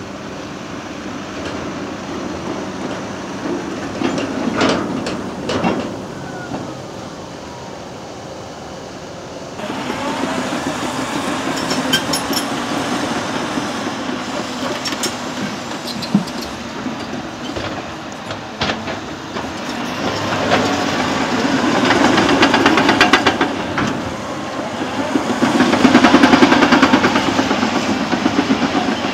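Caterpillar 963K track loader working: its diesel engine runs and builds up under load twice near the end, with steel tracks clattering. There are a couple of metal clanks early on.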